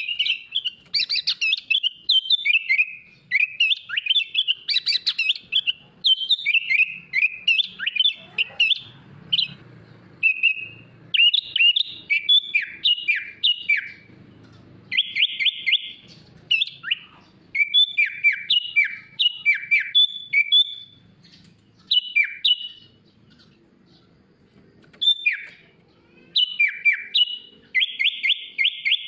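Sooty-headed bulbul (kutilang) singing a long, varied song of quick chirps and whistled phrases, with a fast rattling trill about halfway through and another near the end.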